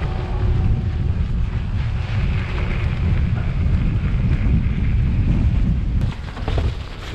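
Wind rumbling on the microphone of a mountain biker's action camera while riding, with a steady hiss above it. About six seconds in, the rumble drops and a run of short clicks and rattles follows.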